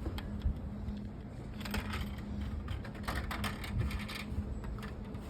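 Coins being fed into a vending machine: irregular light clicks and rattles in several short clusters, over a low steady hum.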